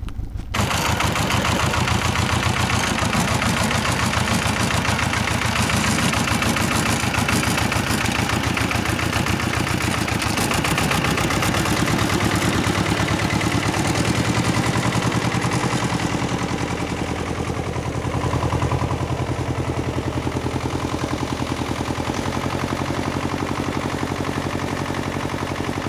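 Xingtai 180 minitractor engine running with a fast, even chugging as it pulls a trailer heavily loaded with hay rolls. The engine gets a little quieter from about sixteen seconds in.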